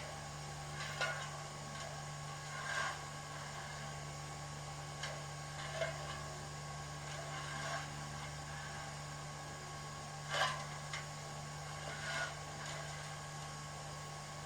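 Sound decoder of a K class steam locomotive model playing stationary locomotive sounds through its speaker: a steady low hum with short hisses or clicks every second or two.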